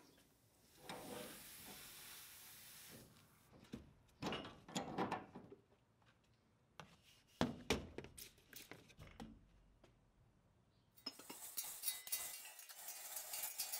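A soft hiss, then scattered light metallic clinks and knocks. Near the end comes a denser run of rattling clatter.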